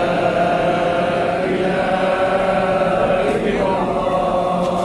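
Voices chanting an Islamic devotional recitation in long, drawn-out held notes.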